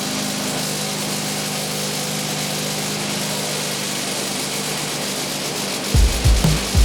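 Portable sawmill's gas engine running steadily at a constant pitch. About six seconds in, electronic music with a heavy bass beat comes in over it.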